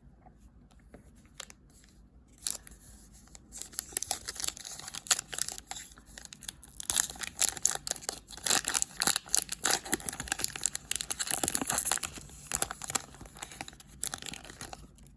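A trading card pack's wrapper being torn open and crinkled by hand: a dense crackle that starts about two and a half seconds in, is loudest through the middle and dies down near the end.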